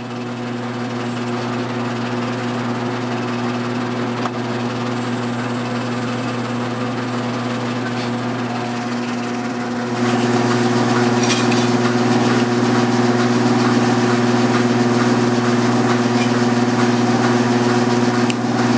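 Metal lathe motor starting up and running steadily with a hum as bronze stock spins in the chuck; it comes up to speed over the first couple of seconds and gets louder about ten seconds in.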